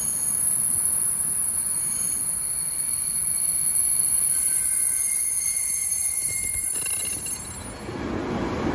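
Passenger train slowing into a station: steady high squealing from the wheels and brakes over the rumble of the cars on the track. Near the end the squeal fades and a louder, lower rolling rumble takes over.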